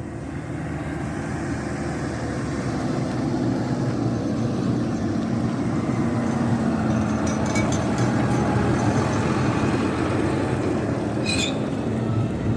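A heavy vehicle engine running steadily, growing louder over the first few seconds, with a few faint clicks and a brief high squeak near the end.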